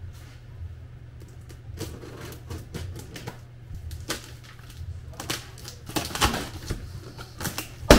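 Utility knife slitting the packing tape and cardboard along the top of a shipping box: a series of short scratchy cuts and rips that grow busier and louder in the second half. A sharp knock comes at the very end.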